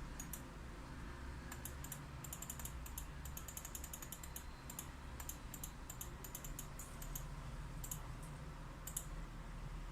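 Runs of rapid, light clicks, as of keys being typed or a mouse being clicked, with a steady low hum underneath.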